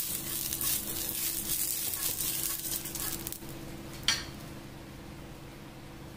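Ghee sizzling in a hot pan, a crackly hiss that dies down about three and a half seconds in. A single sharp click follows just after, over a steady low hum.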